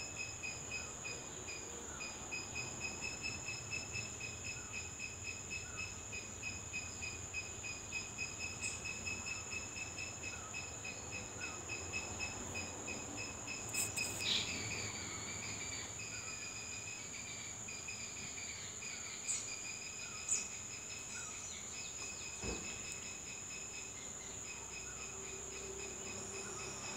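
Insects singing: one steady, high-pitched trill runs throughout, over a lower trill that pulses in an even rhythm, with a few brief clicks about halfway through.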